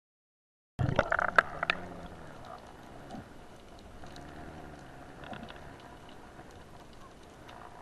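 Underwater ambience on a spearfishing dive, heard through a camera housing: a few sharp knocks and clicks right after the sound begins, then a steady low hiss with scattered faint clicks.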